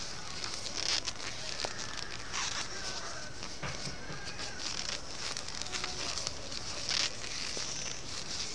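Circular knitting needles and wool being worked close to the microphone as purl stitches are knitted: soft, irregular scratchy rustles of yarn and fingers with light needle ticks.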